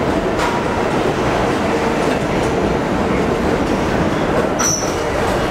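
Pullman Standard R46 subway train running along an underground station platform: a steady loud rumble of wheels on rail, with a brief high wheel squeal about four and a half seconds in.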